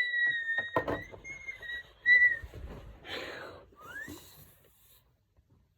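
A person whistling: a long, slightly falling note, then a few short notes, and a quick rising whistle about four seconds in. A couple of sharp clicks and a breathy rush of air come in between.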